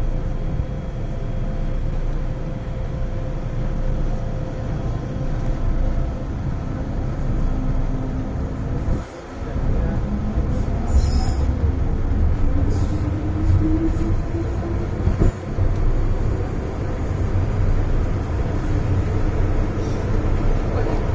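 MTR M-Train (Island Line EMU) running in the tunnel: a steady low rumble of wheels and running gear. A motor whine rises in pitch from about ten seconds in as the train gathers speed, after a brief dip in the noise just before it.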